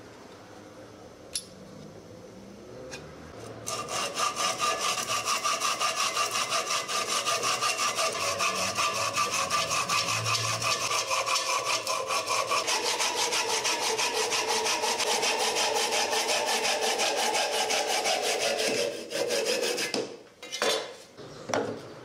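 Saw cutting through a wooden beam with fast back-and-forth strokes, about three a second, with a ringing from the blade. It starts a few seconds in and stops near the end, followed by a couple of knocks.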